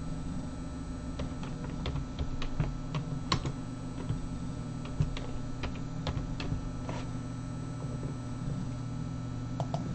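Computer keyboard being typed on, a scatter of irregular key clicks over a steady low hum.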